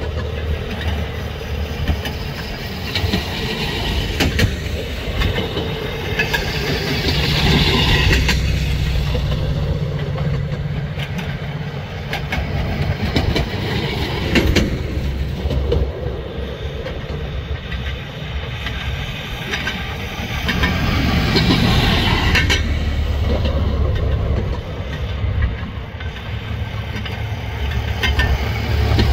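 A line of railroad motorcars (track speeders) running past one after another on the rails: small engines humming and steel wheels clicking over the track. The sound swells twice as cars pass close.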